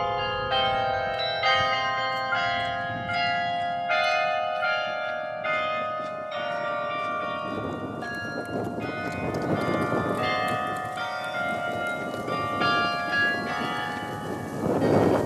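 The hand-played carillon in Berlin's Tiergarten rings a melody. Its notes are struck about twice a second at first, then more sparsely, each bell ringing on. In the second half a rushing noise swells up under the bells twice.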